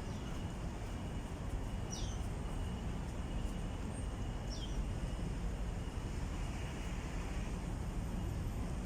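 Steady low outdoor rumble with two short bird whistles, each falling in pitch, about two seconds and four and a half seconds in.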